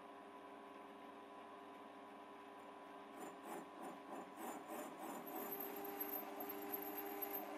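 Procraft VMM800 mini lathe running with a steady motor hum. About three seconds in, a parting tool starts cutting into the spinning workpiece, adding an irregular scraping, and a thin high whine joins about two seconds later.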